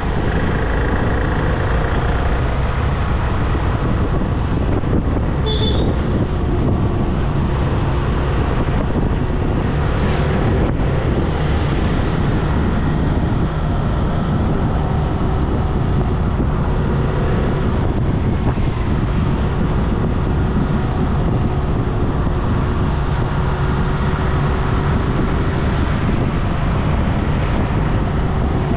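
Steady road noise from a car driving along a highway: tyre and wind noise with an engine hum that drifts slowly in pitch. There is one brief high-pitched beep about six seconds in.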